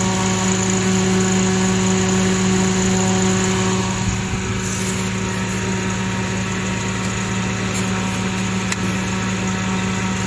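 Steady hum of a Suzuki Carry DA63T mini truck idling, with its electric radiator fan running. The auxiliary fan is wired direct, so it runs constantly.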